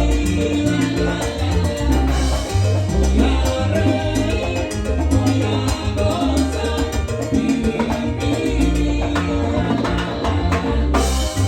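Salsa music: a steady bass line under percussion and pitched instrument lines.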